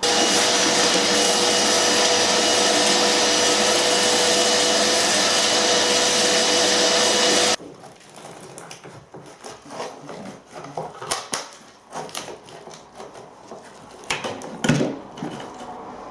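Vacuum cleaner running steadily with a whining tone, cutting off suddenly about halfway through, sucking up plaster debris and dust. Scattered light knocks and clicks follow.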